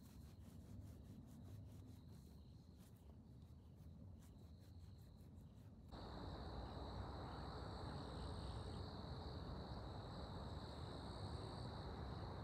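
Insects trilling steadily in one unbroken high note. About six seconds in, the background hiss jumps up abruptly and the trill grows louder. Faint clicks come before that.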